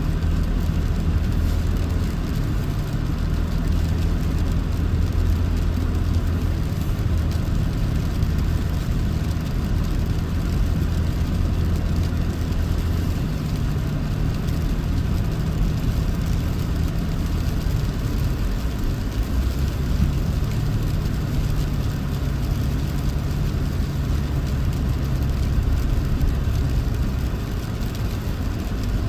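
Toyota 4Runner driving through snow: a steady engine drone under tyre and road noise. The engine note shifts about a third of the way in and again a little later.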